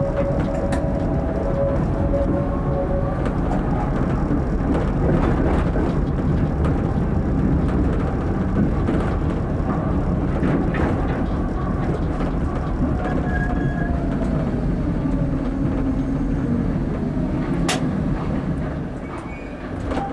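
Tram running along street track, heard from inside the driver's cab: a steady rumble of wheels on rails with a whine that holds for the first few seconds. There is a single sharp click a little before the end, and then the sound gets quieter.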